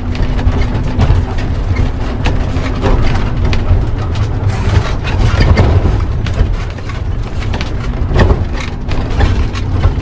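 Motorhome driving on a dirt road, heard from inside the cab: a steady engine and road rumble with frequent knocks and rattles as it goes over the rough surface.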